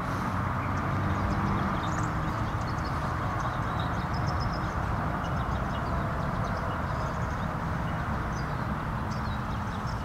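Steady low rumble of distant traffic, with faint, short bird chirps scattered over it.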